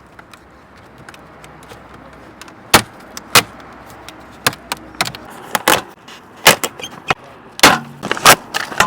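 A run of sharp, irregular clicks and knocks over a faint steady hiss, starting about three seconds in and coming faster near the end.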